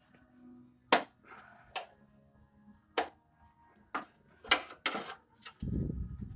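A series of sharp clicks and snaps, about six of them spaced roughly a second apart, as wire harness clips and connectors are worked loose from a car's radiator support, followed by a brief low rumble near the end.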